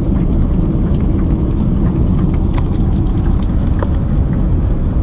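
Airliner cabin during the landing rollout: a loud, steady, deep rumble of the aircraft rolling down the runway with its spoilers raised.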